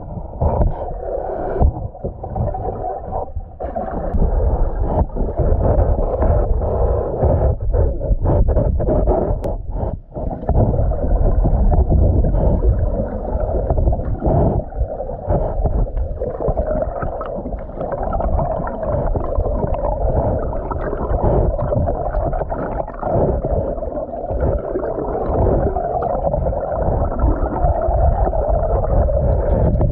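Muffled underwater rumbling and gurgling, as picked up by a camera's microphone held beneath the river's surface.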